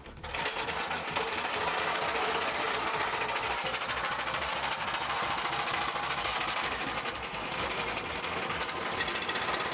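Small single-cylinder petrol engine with a recoil pull starter, used as a boat motor. It comes to life as the starter cord is pulled and then runs steadily with a fast, even beat.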